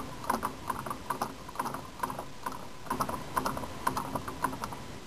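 A small homemade Stirling engine running, its crank, displacer rod and linkages clicking and knocking rhythmically about three to four times a second. It keeps turning on the heat left after its alcohol flame went out.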